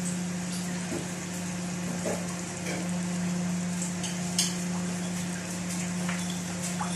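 Sautéed garlic, onion, tomato and fish bagoong with water sizzling and bubbling in a pot as it is brought to a boil, with a few faint ticks and a steady low hum underneath.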